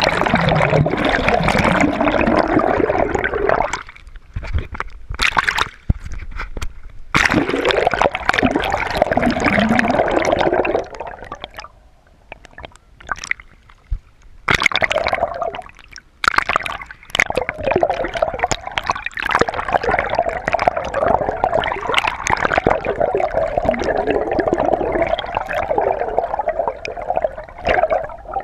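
Water sloshing and gurgling around a camera held just under the sea surface, heard muffled as if from underwater. It twice drops away to a quieter wash for a few seconds while the camera is lifted above the surface.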